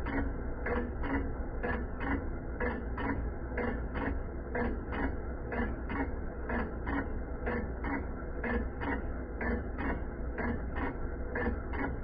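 Lathe running through a facing pass on an aluminum water pump housing, a steady machine hum with an even ticking about three times a second.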